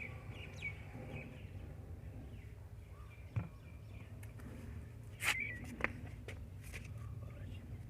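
Faint low background hum with a few soft clicks, the clearest about three and a half seconds in and two more near the end, and a couple of brief faint chirps.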